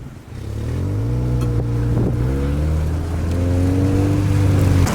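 Car engine pulling away and accelerating, its pitch rising over the first second or so, then holding a steady drone before cutting off suddenly near the end.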